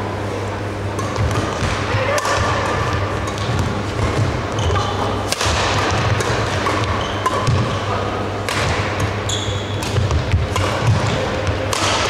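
Badminton doubles rally: rackets striking the shuttlecock several times at irregular intervals, with footfalls and short squeaks of players' shoes on the court floor.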